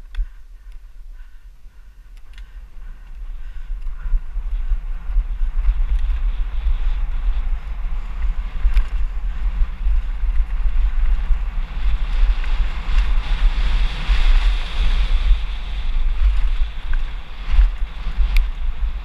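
Wind buffeting a helmet-mounted camera's microphone as a mountain bike speeds down a dirt trail, the rush building over the first several seconds as speed picks up. A few sharp clicks and knocks from the bike rattling over the ground.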